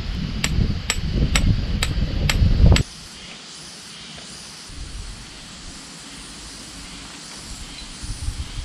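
Six sharp metallic taps, about two a second, over low wind rumble on the microphone. The taps stop abruptly about three seconds in, leaving a quieter steady breeze.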